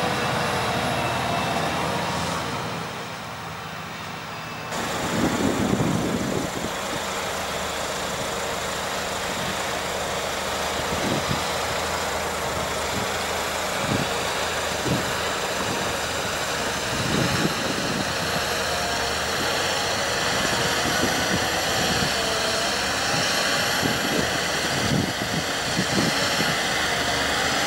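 Fendt 1050 Vario tractor's six-cylinder diesel engine running steadily under load while pulling an earth scraper through sand, with occasional low thumps. About two and a half seconds in the sound drops quieter for two seconds, then comes back.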